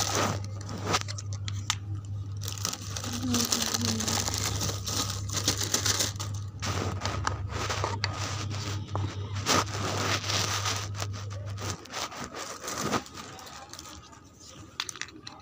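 Crinkling, scraping handling noise with scattered clicks, over a steady low hum that stops about twelve seconds in.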